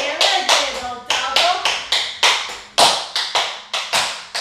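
Metal taps on tap shoes striking a hard floor in quick tap-dance steps, about four to five sharp taps a second in an uneven rhythm.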